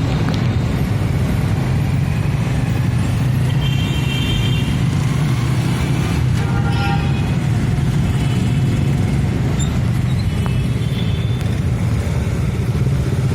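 A Philippine tricycle's motorcycle engine running steadily during a ride, with street traffic around it. A few brief high-pitched tones cut in, about four seconds in and again near the middle.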